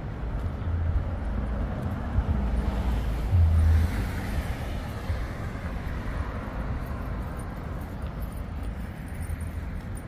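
City street traffic: a steady low rumble with a vehicle passing close by, its noise swelling and then fading from about three to six seconds in.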